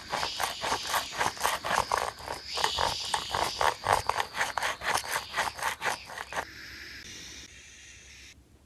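Plastic toy car wash playset being worked by hand: a rapid, even scraping clatter of about five strokes a second that stops about six and a half seconds in.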